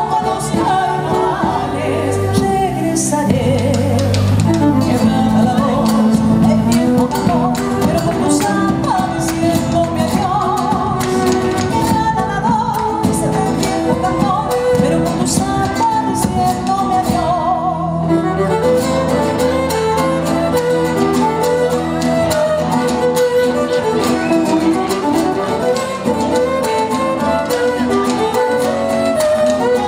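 Live Argentine folk band: a woman singing into a microphone with violin, guitar and a bombo legüero drum beating out the rhythm.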